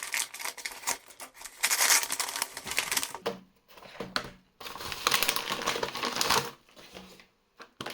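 Packaging being opened and handled: cardboard and plastic rustling and crinkling with quick clicks and taps, in two main spells with short pauses between.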